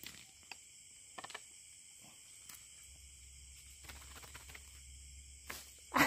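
Quiet night ambience: a steady, high-pitched trill of crickets or other night insects, with a few faint clicks and rustles.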